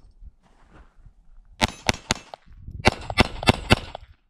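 Browning Buck Mark .22 LR pistol firing about seven shots, starting about a second and a half in: three quick shots, a short pause, then about four more at a steady pace.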